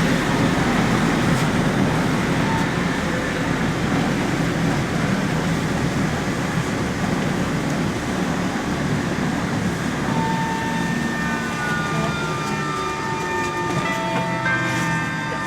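Cabin noise inside a LAZ E-183D1 electric trolleybus under way: a steady rumble from the wheels and body. From about ten seconds in, the electric traction drive adds a whine of several thin tones, one of them falling in pitch.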